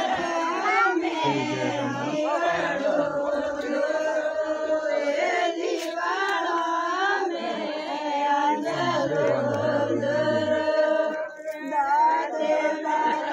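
Group of women singing a Marwari wedding folk song together, several voices in unison and holding long notes.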